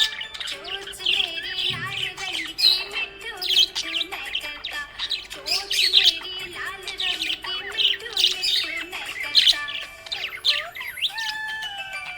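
Budgerigars chirping and warbling in a busy, continuous stream of short, high-pitched chirps and squawks.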